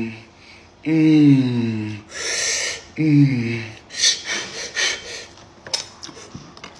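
A man's wordless voice: three drawn-out vocal sounds, each sliding down in pitch, with a breathy exhale between them. Then scattered crackles and clicks as hands work over a roasted pig's head.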